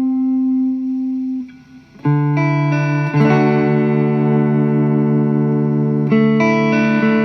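Electric guitar played through a tube overdrive pedal (Alien Rabbit Magic Drive) into a Fender amp at low gain. A held note with vibrato dies away, then after a short gap notes are struck one after another and left to ring as a chord. The chord changes near the end.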